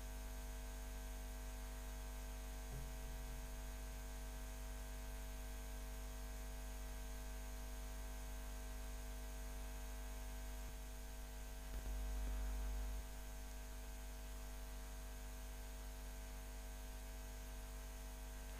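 Steady electrical mains hum with faint hiss on the narration microphone's line, no speech; a brief, slightly louder low rumble about twelve seconds in.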